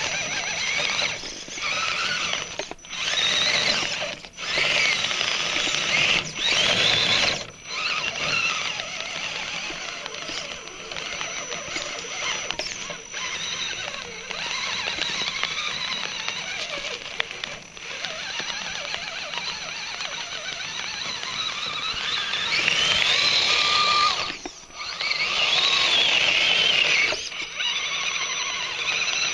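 Electric drive motor and gearbox of an RC crawler truck on RC4WD EVO Predator snow tracks whining as it drives through snow, in bursts of throttle with the pitch rising and falling and brief cut-offs between.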